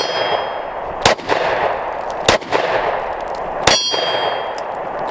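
Smith & Wesson Shield Gen 1 pistol firing single shots about every second and a quarter, three in all. Several are followed by a bright metallic ring, typical of a steel target being hit.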